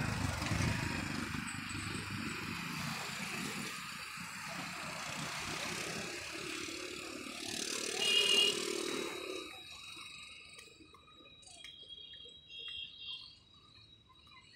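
Road traffic of cars, scooters and motorcycles going past, with one louder vehicle pass about eight seconds in; the traffic sound fades over the last few seconds.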